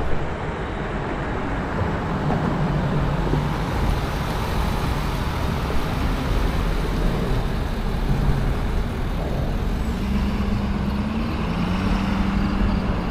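Steady road and wind noise of a car driving along, with the engine's low hum coming through about ten seconds in.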